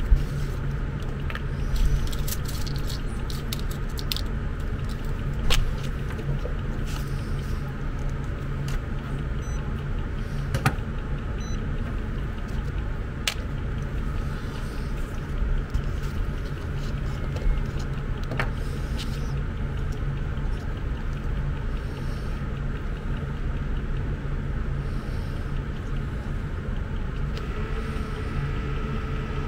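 A steady low background hum, with a few scattered small clicks and taps as a toothpick, a glue bottle and the plastic remote casing are handled on a workbench.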